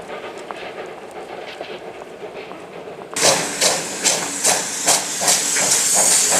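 Pt47 steam locomotive and its train: first a steady rumble of the train with faint rail clicks, then, about three seconds in, a sudden change to loud exhaust chuffs at about two to three a second, with a strong steam hiss that grows toward the end.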